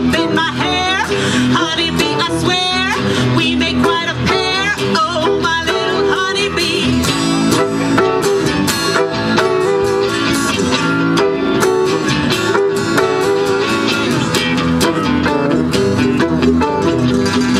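Live acoustic band music led by guitar, with high sliding notes over the first few seconds and then steadier held notes.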